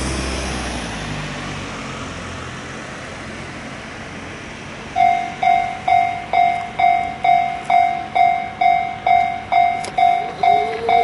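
A road vehicle passes and fades away. About five seconds in, a Japanese level crossing's warning alarm starts ringing its repeated clanging tone, about two strikes a second, signalling an approaching train. Near the end a steady lower tone rises in under it.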